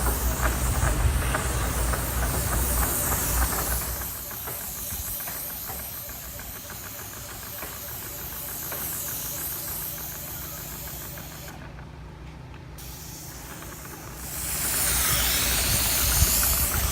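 Engine-driven spray rig running with the steady hiss of its spray nozzle against the roof tiles. The hiss drops away in the middle and comes back up loudly near the end.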